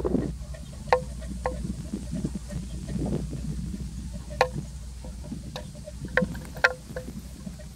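Wind rumbling on the microphone in open country, with a handful of sharp, irregular knocks, each ringing briefly at a single low pitch.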